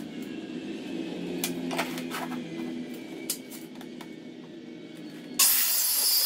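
A few light clicks and knocks, then about five seconds in a hand-held corded circular saw starts up and cuts into a wooden board with a loud, hissing whine.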